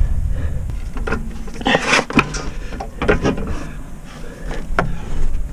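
Irregular clicks, knocks and scraping of a new steel coil spring and its rubber isolator being worked into the rear spring seat by gloved hands, with a longer scrape about two seconds in over a steady low rumble.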